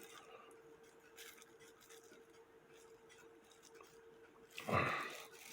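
Faint small clicks and ticks of metal clock-movement parts being handled, over a faint steady hum, with one louder brief sound near the end.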